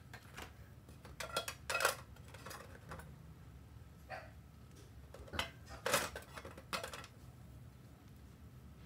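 Light clicks and clatter of small hard objects being handled, in two short bunches with a single click between them.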